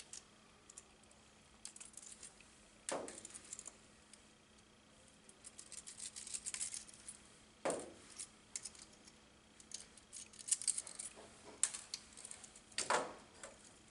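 Pliers gripping and twisting the metal mounting ears off a duplex outlet's strap: scattered small metallic clicks and scraping, with a few sharper clicks spread through.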